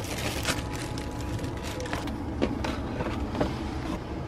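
Irregular knocks, clicks and clatter of things being handled and moved about inside a motorhome, over a steady low hum.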